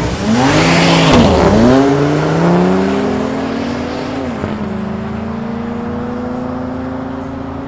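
An Audi RS3's turbocharged five-cylinder petrol engine and a BMW's 3.0 twin-turbo straight-six diesel launching hard together off a drag-strip start line. Both engines rise in pitch through the gears, with shifts about two and a half and four seconds in, and grow fainter as the cars pull away.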